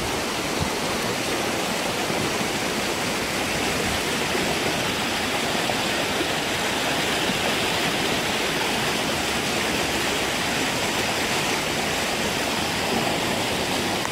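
Steady rushing of a river in flood, its muddy water running high after heavy rain.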